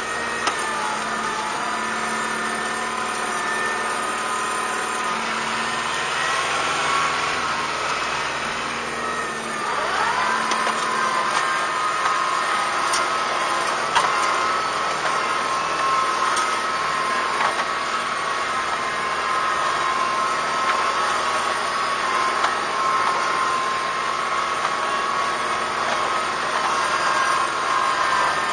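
Kubota M5140 tractor's diesel engine running steadily under load while pulling a box blade, with a steady whine over the engine note and a single sharp knock about halfway through.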